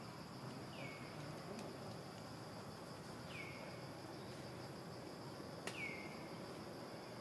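Faint steady insect chorus, with a bird giving a short call that slides down in pitch three times, about every two and a half seconds. A sharp click comes with the third call.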